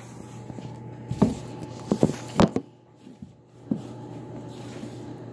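A handful of sharp knocks and thumps, most of them between one and two and a half seconds in and one more near the end, over a steady low hum.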